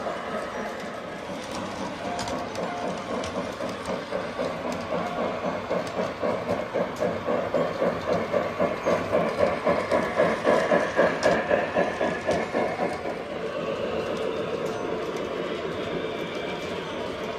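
Toy electric steam train running on its track, passing close by with an even rhythmic clatter of several beats a second. The clatter swells to its loudest around ten to eleven seconds in, then fades back to a steady running rumble.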